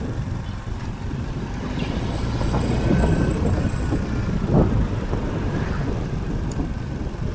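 Motorcycle riding along, heard from a camera low by its front fork: steady wind buffeting and road rumble, with one louder thump about four and a half seconds in.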